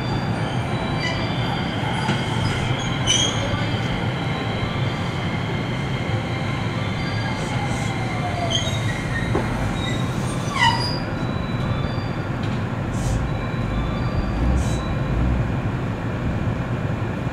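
JR West 227 series electric train braking to a stop at the platform, with several thin high tones, a falling whine about eight seconds in and a short falling squeal a couple of seconds later, over a steady low rumble that grows stronger near the end once the train stands.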